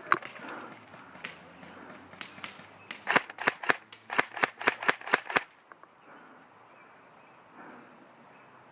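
Airsoft gun firing: one sharp shot, then a quick string of about ten shots at roughly four a second that stops suddenly.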